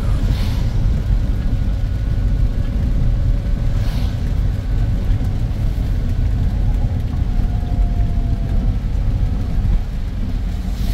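Car cabin noise while driving on a rain-soaked road: a steady low rumble of engine and tyres on wet tarmac, with short swishes of the windscreen wipers a few seconds apart.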